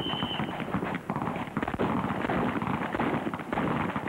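Handgun shots fired on an outdoor range among running footsteps on dirt, with a brief high ringing tone at the very start.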